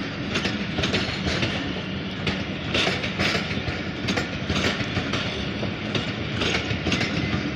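Passenger coach wheels running over the rails as a long train passes: a steady rumble broken by repeated clickety-clack as the wheels cross rail joints.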